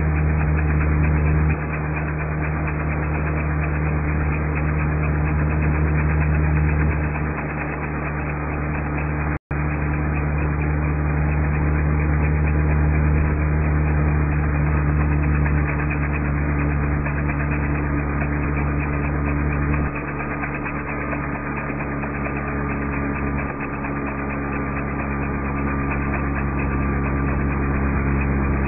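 Car engine running steadily, heard from inside the towing vehicle, its loudness easing down a few times; a brief dropout about a third of the way in.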